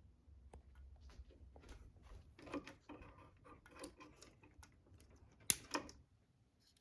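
Fire alarm strobes flashing, giving faint, unevenly spaced clicks, with two louder clicks about five and a half seconds in.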